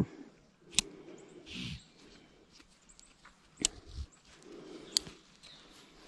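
A few separate light clicks and faint rustling from handling a nylon webbing hammock strap through a metal cinch buckle.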